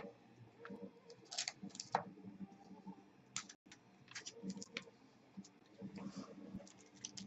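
Trading cards being handled: faint, irregular clicks and light taps of cardboard and card sleeves against each other and the table, with a small cluster of sharper clicks about a second and a half in and again around three and a half seconds.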